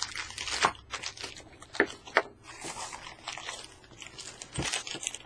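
Thin plastic bag crinkling and rustling in irregular bursts as a hand rummages through it, with a few short knocks.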